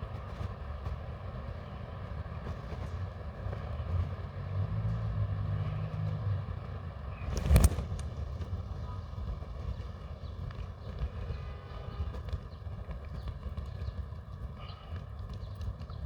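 Outdoor traffic rumble, with a vehicle engine humming past for a couple of seconds and one sharp thump about halfway through.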